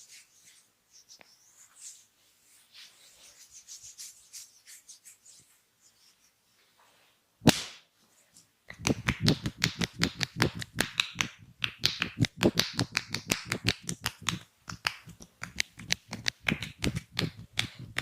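Hands rubbing softly on skin, then a single sharp slap. From then on the hands strike the body in a rapid, even run of percussive massage slaps, about five a second.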